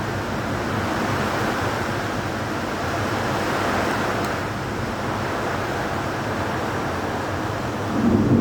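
Thunderstorm noise: a steady rushing of wind and rain, with a low rumble of thunder swelling near the end.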